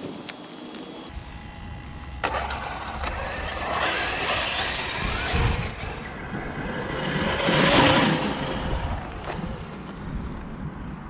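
Traxxas UDR radio-controlled desert truck driving on rough dirt on a 4S battery, its electric motor and tyres surging louder about two seconds in and again near eight seconds in.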